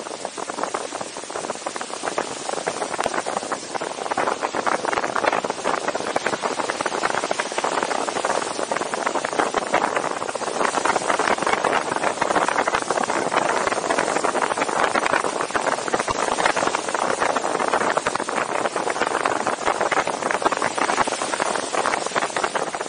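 Steady rush of wind and tyre noise from a car driving along a snow-covered road, heard from a camera mounted outside the moving car, with a dense crackle through it.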